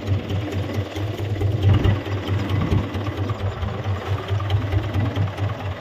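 Small fishing boat's engine running at a steady idle, a regular low rapid thudding.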